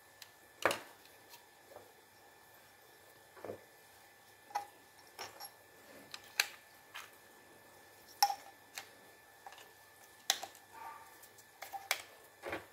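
A small metal tool clicking, tapping and scraping at the battery contacts of a handheld wireless microphone, with the mic body knocked lightly as it is handled. The clicks come at irregular intervals. The sharpest one is about half a second in, and there are others around six, eight and ten seconds in.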